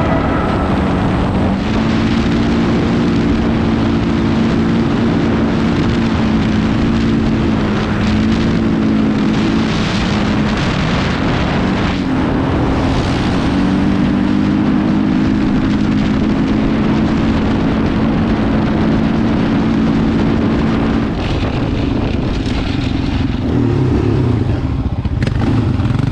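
Motor vehicle engine running at a steady cruise, its pitch stepping up or down a few times, over a continuous rushing noise.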